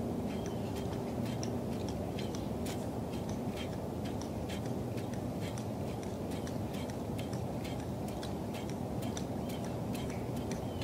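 Irregular sharp clicks, several a second, over a steady low rush of open-air noise.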